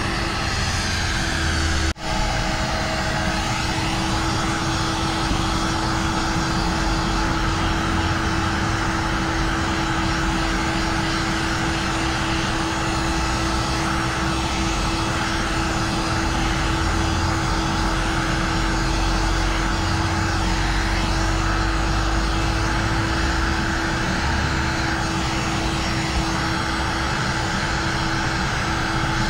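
Handheld electric heat gun running steadily, its fan blowing with a constant hum while it heat-shrinks ceramic tint film to the curve of a car's rear window glass. The sound drops out for an instant about two seconds in.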